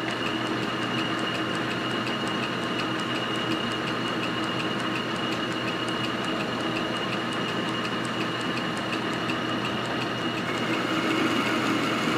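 1947 Logan 10-inch metal lathe running at low speed in direct drive, out of back gears, while taking a cut on a bar held in the chuck. A steady mechanical running sound with a high whine and a light regular ticking.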